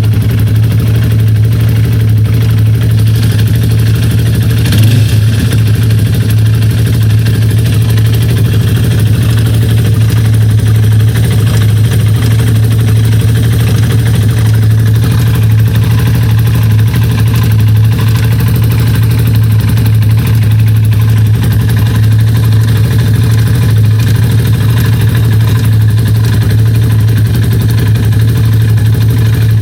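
Yamaha Raptor 350 quad's single-cylinder four-stroke engine running steadily at idle with an odd noise, which the owner thinks is play in the connecting rod.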